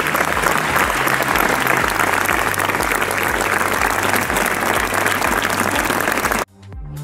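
Large outdoor crowd applauding, a dense steady clatter of many hands. It cuts off abruptly about six and a half seconds in, and electronic music starts just before the end.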